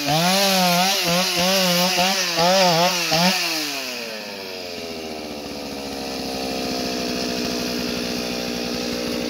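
Stihl 044 two-stroke chainsaw cutting through a large log at full throttle, its pitch dipping and recovering over and over under load. About three and a half seconds in the throttle is released and the engine falls to a steady idle.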